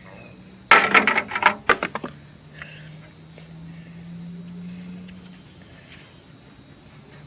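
A quick run of clattering knocks and rattles lasting about a second and a half, a lawn mower's air cleaner being handled and taken off. Steady cricket chirring under it.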